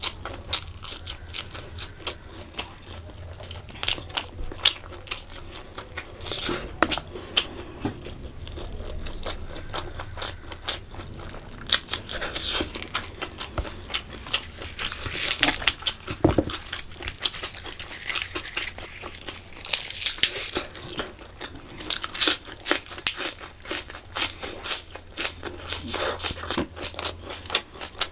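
Close-miked chewing and crunching of food, a dense run of short wet clicks and crunches with a few louder stretches in the middle.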